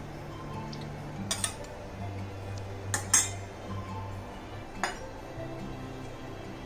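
A spoon clinking against a bowl several times as spoonfuls are scooped in, the loudest clink about three seconds in, over soft background music.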